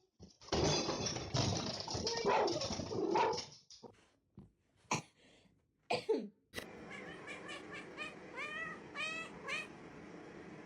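A few seconds of dense, noisy scuffling, then a few sharp clicks. Then a cat meows about five times in quick succession, each call short and rising then falling.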